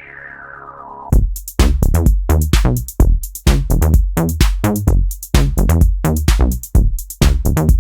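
Detroit electro music: a synth sweep falls in pitch and fades, then about a second in a drum-machine beat comes in with a deep kick and bass under quick hi-hat hits.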